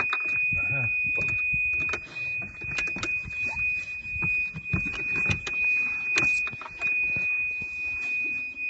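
Golf cart's reverse warning buzzer sounding one steady high-pitched tone, the sign that the cart is in reverse gear, with scattered clicks and knocks underneath.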